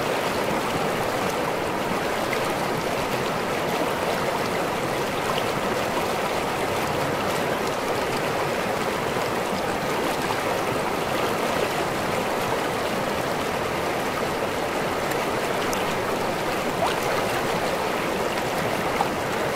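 Small waterfall splashing steadily into a river: continuous rushing and babbling water with occasional small splashes.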